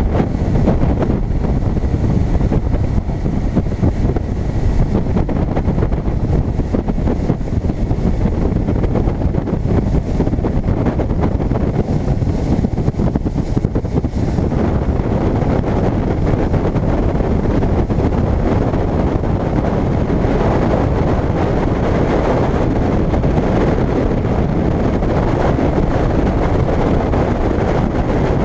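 Steady, loud wind rushing over the microphone of a camera riding on a moving bass boat, a dense low rumble that buries the outboard motor and the water along the hull.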